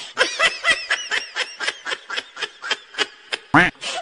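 High-pitched laughter: a long run of quick 'ha' pulses, about five a second. Near the end comes a single short, loud low sound.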